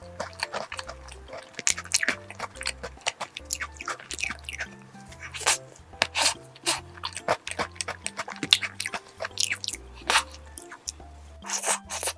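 Close-miked eating of a fruit tart: irregular sharp clicks of biting and chewing. Background music with a stepping bass line runs underneath.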